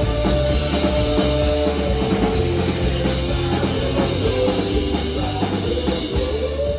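Live rock band playing an instrumental passage, drum kit and guitar with sustained held notes over a steady beat, heard as a loud audience-side recording.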